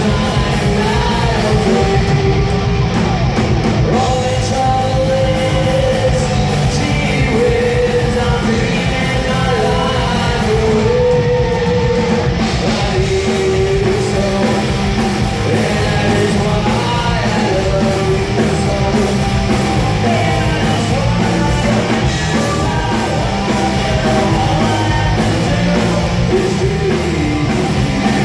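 Live punk rock band playing a song, with a singing voice over the full band. It is loud and continuous.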